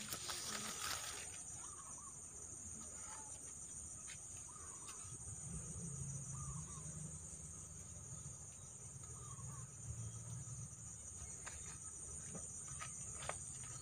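Steady high-pitched drone of insects, with faint short bird calls now and then and a rustle of leaves in the first second.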